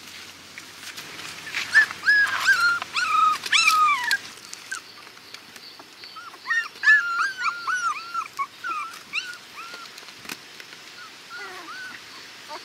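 Puppies whimpering and whining in short, high-pitched cries that come in two runs of rapid calls, with a few fainter whines near the end.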